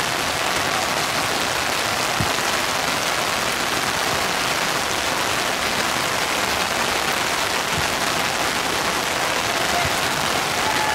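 Steady hiss of heavy rain falling, with a few faint low thumps about two, eight and ten seconds in.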